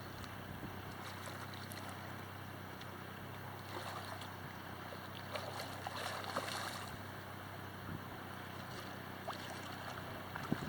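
Steady rush of river water with wind buffeting the microphone, swelling softly a couple of times.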